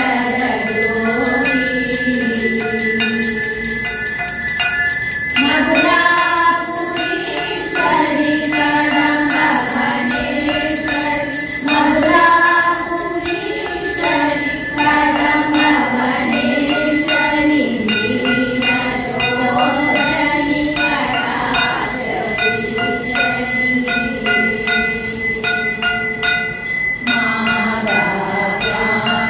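Bells ringing continuously during an arati, over devotional music with a wavering melody.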